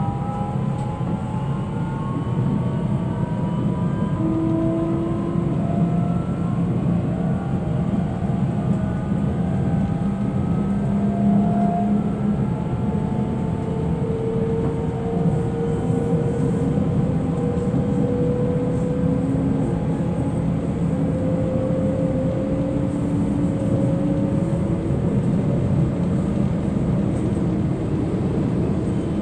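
Class 442 (Bombardier Talent 2) electric multiple unit heard from inside the passenger cabin while running at speed. A whine of several tones from the traction drive climbs slowly, over a steady rumble of the running gear on the track.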